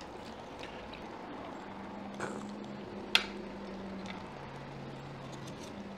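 A metal utensil clinks once sharply against a ceramic bowl about three seconds in, with a softer tap just before it, over quiet room noise and a faint low hum that comes and goes.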